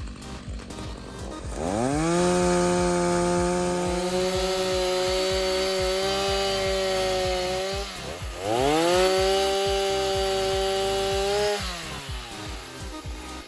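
Stihl two-stroke chainsaw engine revved up to high speed twice, each time holding a steady high whine for a few seconds before dropping back to idle. The freshly refitted chain is being run to check that it spins freely.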